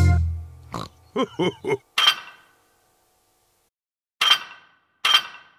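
Three quick cartoon pig snorts, then three sharp clinks, each with a short ring, spaced a second or two apart.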